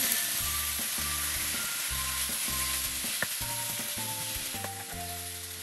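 Ground beef frying in vegetable oil with chopped onion and garlic in a pan, with a steady sizzle that eases slightly toward the end. Soft background music plays a slow run of notes underneath.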